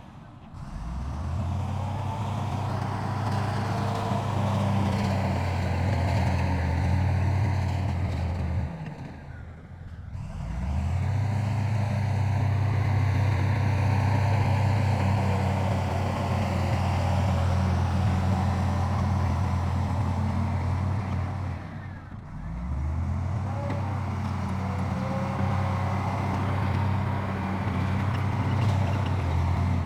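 Diesel engine of heavy earthmoving machinery running steadily with a deep drone, dipping briefly twice and then building back up.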